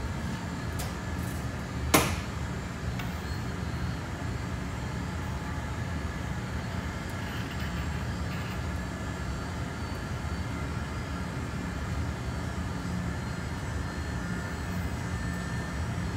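Steady low rumble of a hotshop's gas-fired glass furnace and ventilation running. A single sharp clank comes about two seconds in.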